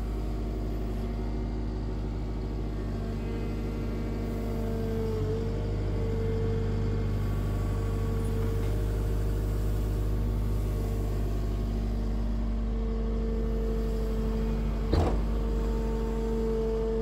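Atlas 140 W wheel excavator's diesel engine running steadily while the boom and bucket are worked, with a hydraulic whine that comes and goes as the functions move. A single sharp clunk near the end.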